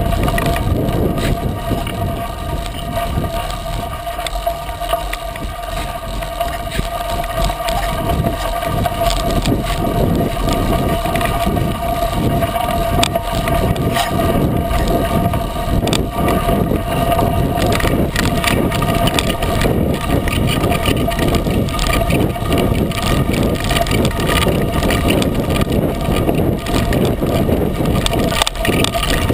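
Wind on the microphone in a steady rush, with the knobby tyre of a 36-inch Coker unicycle crunching over a loose gravel trail in frequent small crackles.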